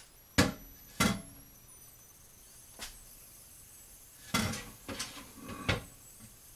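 Hard clanks of metal and glass at an opened stainless pressure canner full of canning jars: six sharp knocks, two close together at the start and a cluster near the end, each leaving a faint high ringing.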